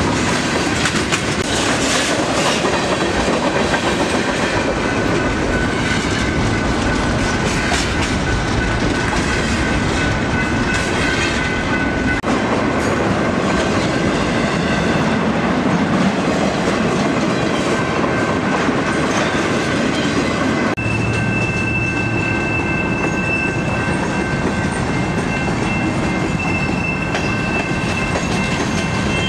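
Freight cars (tank cars, flatcars and covered hoppers) rolling past at close range: a continuous rumble of steel wheels on rail with rapid clicks over the rail joints. A thin, steady high whine runs over it. The sound changes abruptly about two-thirds of the way through.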